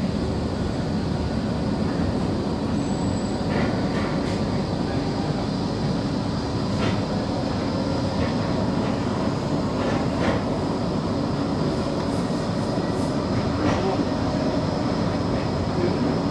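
Blackpool tram running along the tramway: steady wheel-on-rail running noise with a few faint clicks.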